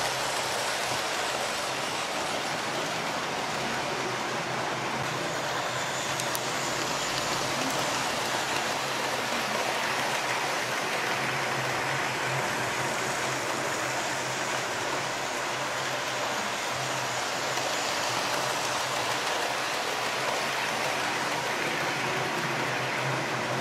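Several electric model railway trains running on their circuits at once, making a steady, continuous whirring and rushing noise of small motors and wheels on track.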